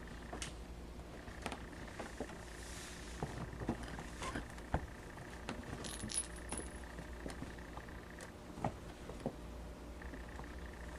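Kittens scuffling and playing on carpet: scattered light taps and clicks, with a brief high metallic jingle about six seconds in.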